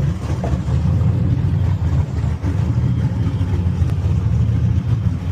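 Speedboat engine running at low speed with a steady low rumble while the boat is steered in to the dock.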